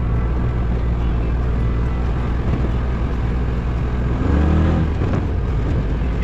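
Off-road vehicle engine running steadily while driving on a dirt road, its pitch shifting briefly about four seconds in.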